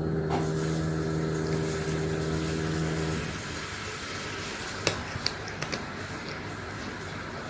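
Electric power tool motor from renovation work, running with a steady hum and then stopping about three seconds in, followed by a few sharp clicks.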